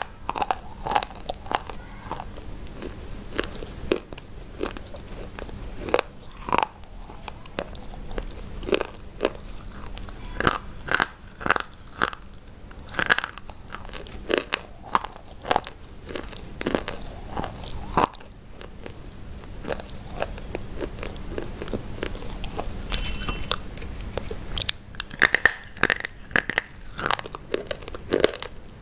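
Biting and chewing brittle white chalk-like sticks close to the microphone: a run of sharp crunches and snaps, some in quick clusters, with quieter chewing noise between.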